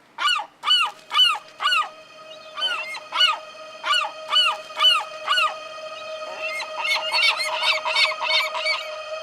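Gulls calling, a quick series of short yelping calls about two a second, over a steady held tone that comes in about a second in; near the end the calls come faster and overlap.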